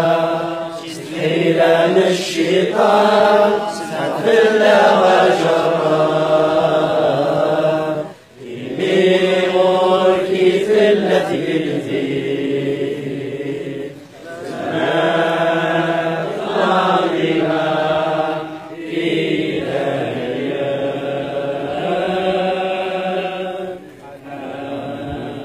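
A group of men's voices singing a Kabyle Christian hymn together in unison, in long drawn-out phrases with short pauses between them.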